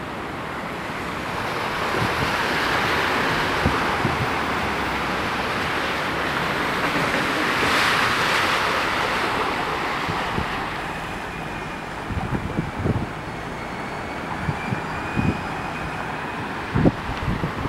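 Car tyres hissing and spraying through standing saltwater floodwater on a street: a rushing swish that swells as vehicles pass, is loudest about eight seconds in, and fades out after about twelve seconds.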